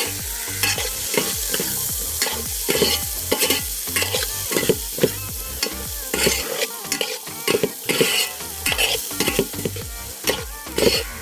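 Bird's eye chillies, papaya and carrot being stirred in a pan of sizzling coconut oil: irregular scraping strokes of the stirring over a steady sizzle.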